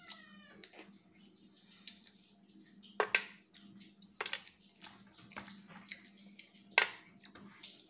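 Close-up hand-eating sounds: wet chewing and mouth noises, with fingers picking at fish and rice on a steel plate. A few sharp clicks stand out, about three seconds in, a second later, and a louder one near the end.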